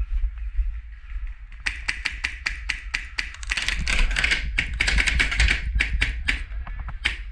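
Airsoft gun firing a rapid string of sharp shots, starting about one and a half seconds in and coming thickest in the middle, over a low rumble of wind or handling on the microphone.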